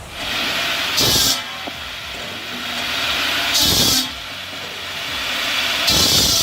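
Wood-processing machinery running, with three loud hissing bursts about two and a half seconds apart, each building up and cutting off sharply.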